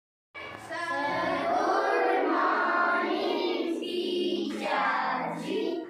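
A class of young schoolchildren chanting a greeting together in a drawn-out, sing-song chorus of many voices.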